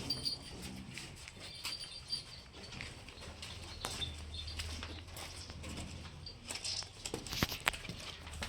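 Cattle shed sounds: scattered knocks and rustles with a few faint high chirps, a low hum in the middle, and two sharper knocks near the end.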